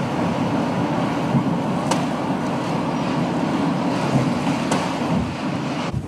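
Steady rushing wind noise buffeting the microphone in a snowstorm, with a couple of faint clicks.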